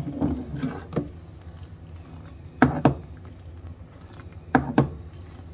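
A spoon stirring coffee in an aluminium pot, knocking against the pot's sides in short sharp clicks, mostly in pairs about every two seconds, over a steady low hum.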